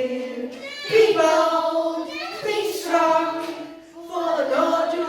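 Children singing a song, holding each note for about a second with slides between notes.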